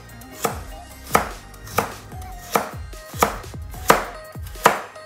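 Chef's knife dicing carrot into small cubes on a plastic cutting board: seven even chops, about one every two-thirds of a second.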